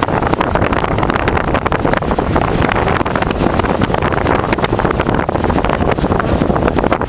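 Storm wind buffeting the microphone: a steady loud rushing with rapid crackling.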